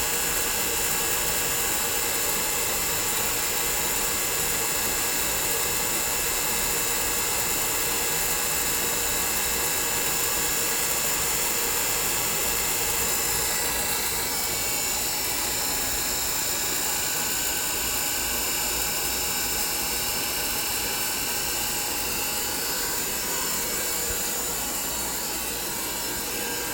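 Lab vacuum pumps running steadily with a whining hum made of several steady tones, while pulling a vacuum on a dilution-refrigerator circulation pump's oil so that dissolved helium-3/helium-4 gas bubbles out. Faint whines rise and fall about halfway through.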